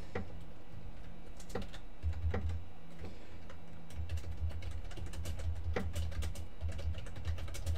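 Typing on a computer keyboard: a few scattered key clicks, then a quicker run of keystrokes from about four seconds in, over a low steady hum.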